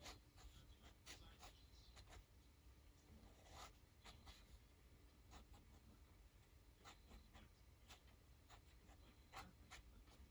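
Faint scratching of a fine-liner pen drawing on paper in short, irregular strokes.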